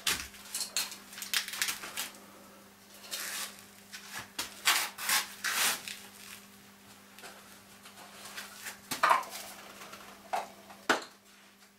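Irregular rubbing and scraping with light knocks and clatter, as of hard objects being handled and shifted about, over a steady low hum.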